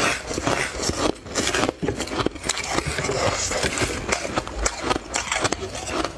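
Crushed snowy ice crunching and scraping as a plastic spoon digs into it and scoops it up: a dense, continuous run of crackles and scrapes.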